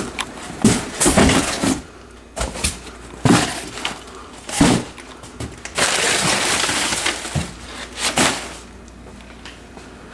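Someone rummaging through a pile of parts and packaging: an irregular run of knocks, clatters and rustles as items are picked up, moved and set down, with a longer rustle a little past the middle.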